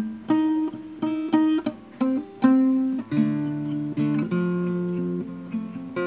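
Acoustic guitar played slowly: plucked notes and chords ring out one after another and fade, some held longer in the middle of the phrase.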